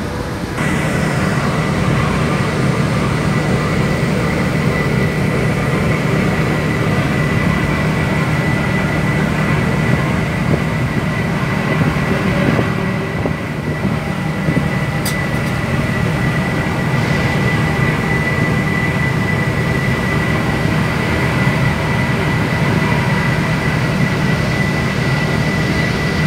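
Offshore vessel's engines running steadily as the boat steams in rough sea: a deep drone with a thin, steady high whine over it and the rush of wind and water.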